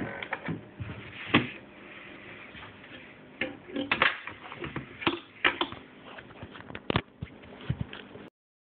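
Irregular knocks and clicks of handling as a hand rummages at an open storage hatch in a carpeted boat deck, mixed with phone-handling rumble. The sound cuts off abruptly near the end.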